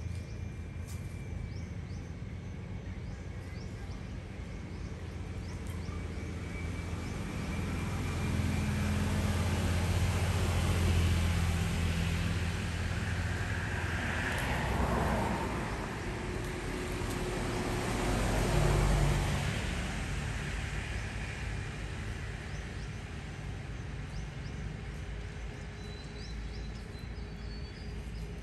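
A motor vehicle passing outdoors: a low rumble with a broad hiss that swells to a peak around the middle and then fades, over faint high chirps.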